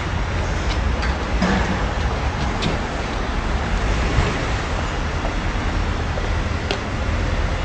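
Steady street background noise: a low traffic rumble under an even hiss, with a few faint clicks.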